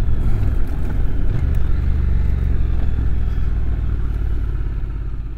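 Honda NC750X motorcycle's parallel-twin engine running at low revs as the bike rolls off the road into a fuel station forecourt. Its low hum settles into a steadier note about a second and a half in and eases slightly towards the end.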